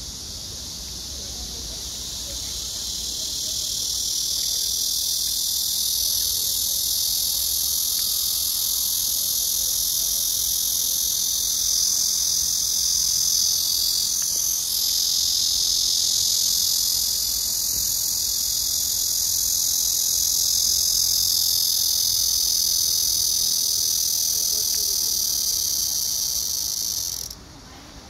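Blackish cicada (Cryptotympana atrata) singing: a loud, steady buzzing drone that swells over the first few seconds and stops abruptly near the end.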